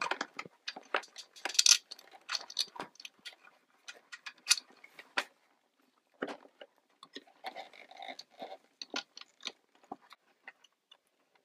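Irregular clicks, rustles and light scrapes of hands handling insulated wires and pushing their connectors onto a treadmill's motor control board.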